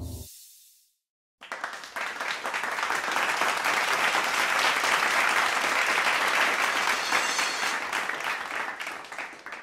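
Applause from a group of people, starting about a second and a half in, building quickly, then fading away near the end.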